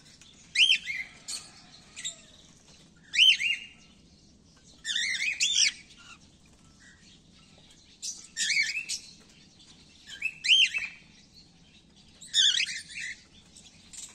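Cockatiels chirping: about seven short bursts of quick, high, rising-and-falling chirps, one every second or two.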